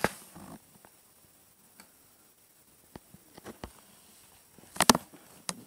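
Scattered light ticks and taps on a wooden surface, with a louder double knock shortly before the end.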